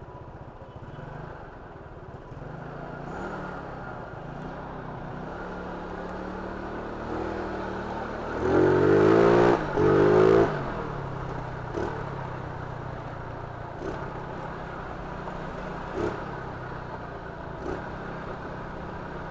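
A 2012 Yamaha Mio Sporty scooter's small single-cylinder engine runs in slow traffic, picking up a little a few seconds in. Twice, about eight to ten seconds in, a louder wavering sound rises over it for about a second each time.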